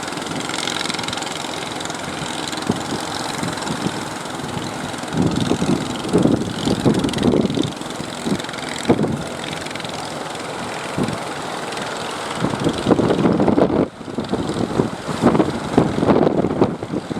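Fishing boat engines running steadily, with louder low rumbling about five seconds in and again near the end.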